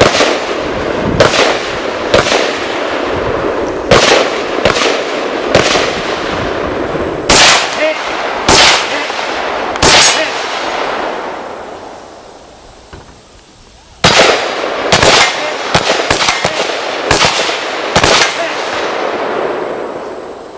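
AR-15 rifle firing 5.56 mm rounds at steel targets, one aimed shot at a time, a second or so apart. The shooting stops for about three seconds midway, then a faster string of shots follows.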